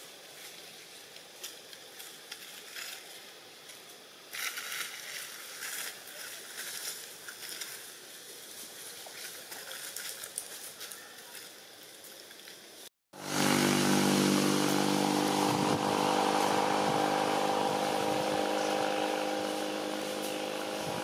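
Quiet outdoor background with scattered faint clicks and rustles, then after a sudden cut about two-thirds of the way in, a small engine running steadily at close range, much louder, with an even, unchanging hum like an idling motorbike.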